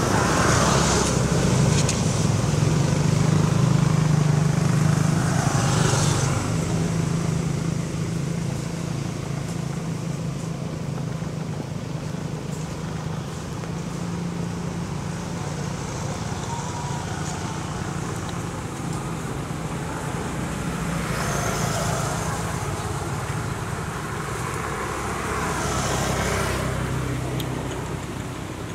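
Steady low motor hum, loudest in the first few seconds, with a few brief louder swells of hiss: one at the start, one about six seconds in, and two more in the last third.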